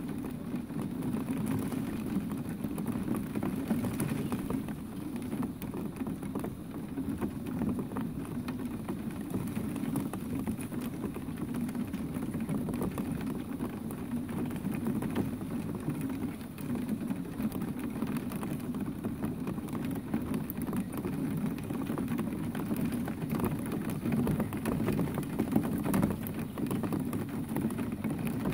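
Steady rain falling, with many scattered drops ticking on a nearby surface.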